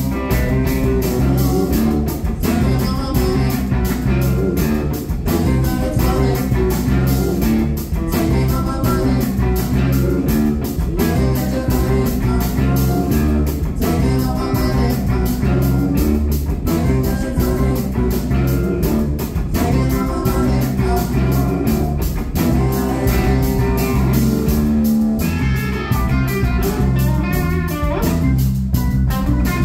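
Live blues band playing a song: electric guitar, drum kit and keyboard with a steady beat, and a voice singing over them.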